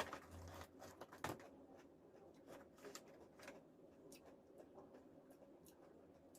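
Faint eating sounds from chewing crunchy spicy chips: a sharp crunch right at the start and another about a second in, then scattered small mouth clicks.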